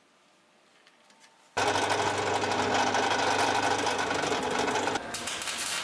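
Benchtop drill press starting about a second and a half in and running steadily as it drills into a weathered timber board; a quieter, different sound takes over near the end.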